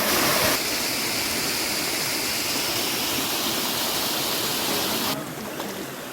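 Rushing water of a valley stream, a steady hiss that changes level and tone abruptly twice as one recording cuts to another.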